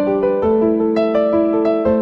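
Background keyboard music: a slow melody of single notes moving every fraction of a second over held bass notes.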